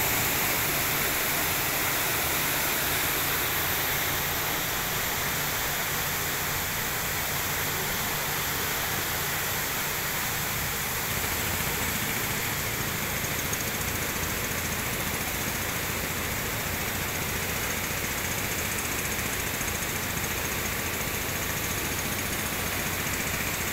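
Waterfall: the steady rushing of falling water over rocks.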